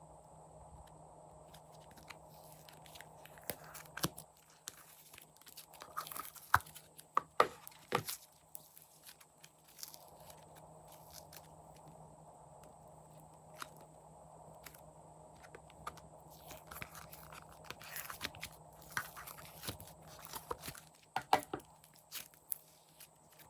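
Slime being squished and pulled by hand, giving scattered sticky pops and crackles in two spells, with a faint steady hum beneath.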